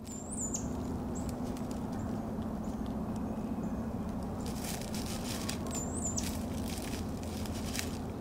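Shrew giving short, very high-pitched squeaks while dry leaf litter crackles and rustles under a hunting cat, with a burst of rustling about four and a half seconds in. A steady low hum runs underneath.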